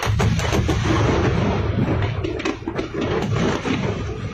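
Aerial fireworks bursting in quick succession: a dense run of bangs and crackles over a continuous low rumble.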